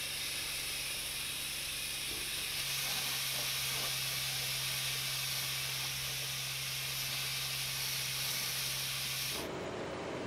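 Fire hose nozzle spraying a high-pressure stream of water onto smouldering wreckage, a steady hiss with a low steady hum underneath. Near the end it cuts off sharply to a duller, lower rush of noise.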